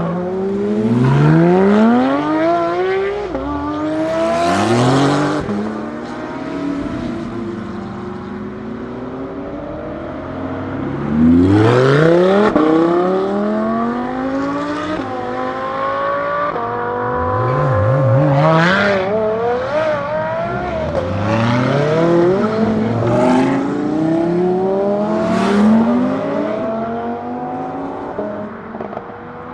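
Lamborghini Huracán STO's naturally aspirated V10 accelerating hard on track. The engine note climbs through the revs and drops back at each upshift, several times over, as the car passes.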